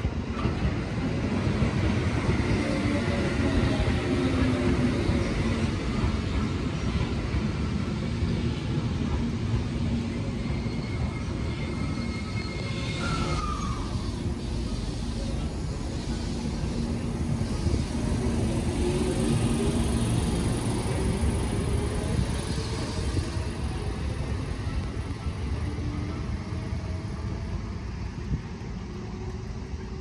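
An electric train running past: a steady rumble with a motor whine that glides down and up in pitch. It builds about a second in and fades near the end.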